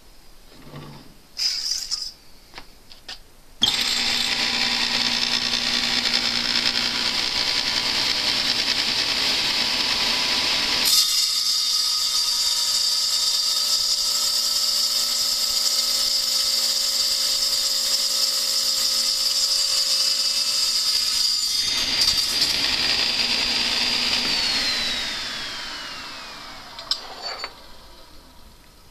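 Table-mounted circular saw starting abruptly and running with a steady high whine while it cuts through a bronze bar; near the end it is switched off and the whine falls in pitch as the blade spins down. A few knocks from handling the bar come before the start.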